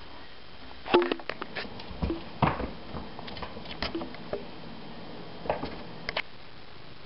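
Irregular taps and thumps of a kitten's paws landing and scrabbling on a wooden parquet floor as it leaps and pounces after a fishing-pole toy's lure, some in quick clusters.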